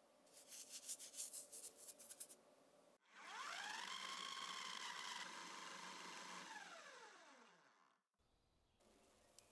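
Food processor motor spinning up with a rising whine, running steadily for about three seconds while blending a cashew sauce, then winding down. Before it starts, a quick run of light clicks.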